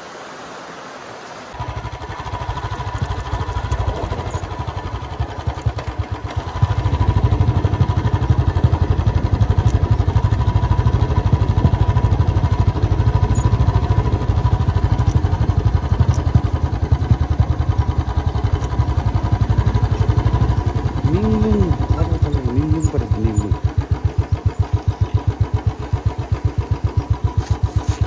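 A vehicle engine starts about a second and a half in and runs, getting louder after about six seconds, then settles into an evenly pulsing beat near the end.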